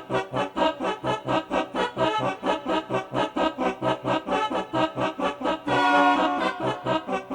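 Cheerful instrumental music with a steady bouncing beat of about four notes a second over a bass pulse, swelling into a loud held chord about six seconds in.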